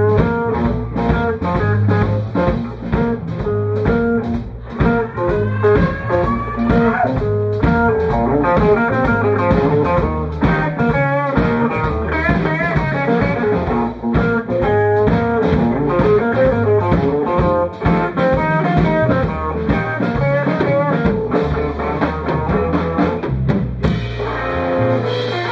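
Live electric blues band playing: electric guitars over electric bass and a drum kit, with a lead guitar bending notes about five to seven seconds in.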